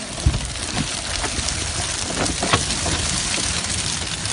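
Seawater streaming and splashing off a fish trap full of snapper as it is hauled out of the sea onto a boat, with a few knocks from the trap and catch, the sharpest just after the start and another about two and a half seconds in.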